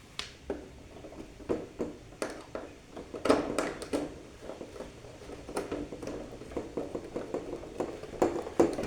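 Irregular light clicks, taps and rustles of hands working electrical wires and fittings.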